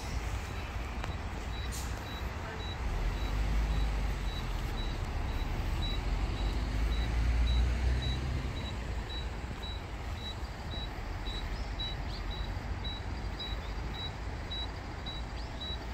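Road traffic: a steady low rumble, swelling as a vehicle passes from about three seconds in and easing off after about eight seconds. A faint high beep repeats about twice a second.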